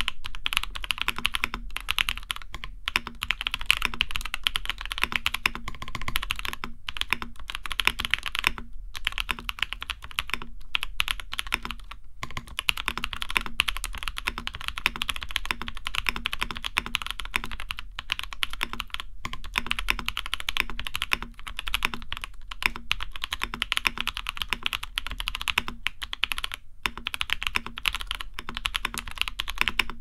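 Fast, continuous typing on a custom 60% mechanical keyboard: an XD60/64 board in an aluminium case, fitted with Gazzew Boba U4T tactile switches and lubed, band-aid-modded stabilizers. Keystrokes come in a dense, steady run, broken by a few short pauses.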